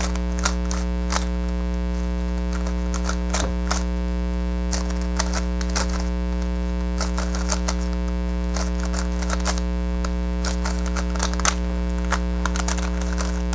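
GAN Skewb puzzle being turned fast during a timed solve: a quick, uneven run of plastic clicks as the corners twist. Under the clicks is a steady electrical mains hum, which is the loudest thing throughout.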